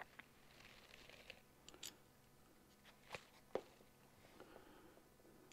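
Near silence broken by a few light clicks and taps of small parts being handled against the PTO cover and workbench. The loudest comes about three and a half seconds in.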